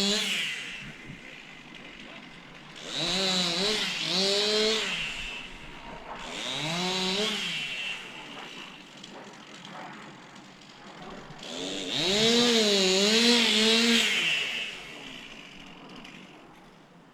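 Chainsaw heard from a moderate distance, sawing into a big tree: the engine revs up three times, and each time its pitch sags and recovers as the chain loads in the wood. Between cuts it drops back to a lower run.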